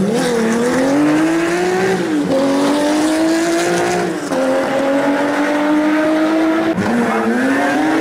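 Rally car engine pulling hard through the gears: the pitch climbs steadily, then drops sharply at each of three upshifts, about two, four and seven seconds in.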